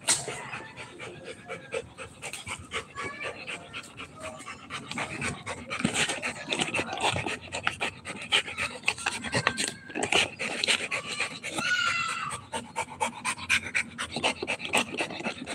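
Rottweiler panting hard while chewing a spiky rubber ball, with many quick irregular clicks from its teeth on the toy.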